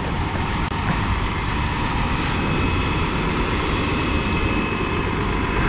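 A motor vehicle engine running steadily: a low rumble with a faint, steady high whine over it.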